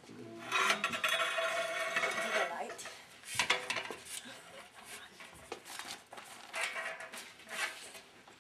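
Clattering about a second long, then a few separate sharp clicks or knocks, with faint talk in the room.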